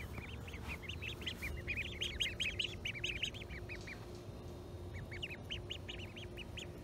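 Ducklings peeping: quick runs of short, high chirps, a dense run over the first few seconds, a pause, then another run near the end.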